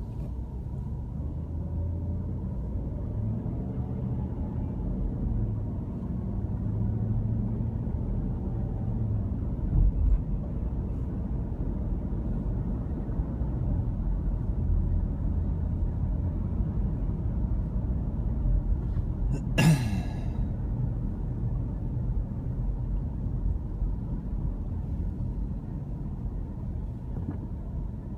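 Steady low road and engine rumble heard inside a moving car's cabin. A brief thump about ten seconds in, and a short sharp sound at about twenty seconds in.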